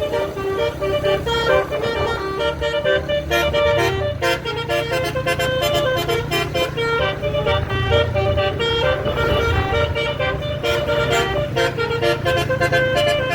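Basuri multi-tone bus horn (the 'telolet' horn) playing a melody of short notes that step up and down, over a steady low hum.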